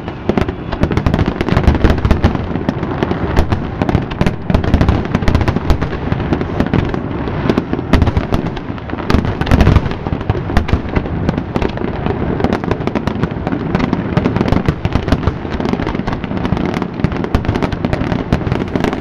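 A fireworks finale barrage: shells bursting in a dense, unbroken run of overlapping bangs and crackles over a constant deep rumble, with no let-up.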